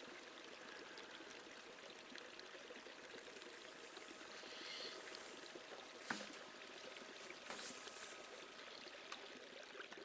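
Faint stream running steadily, with a single click about six seconds in.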